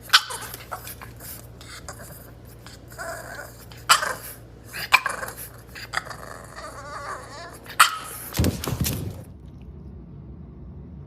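A dog barking and whining in a run of short, sharp outbursts, the loudest near the start and about eight seconds in; the sounds stop about nine seconds in.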